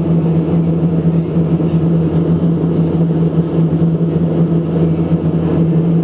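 Steady engine drone heard inside a regional airliner's cabin on short final to landing, a strong low hum under a broad rushing noise.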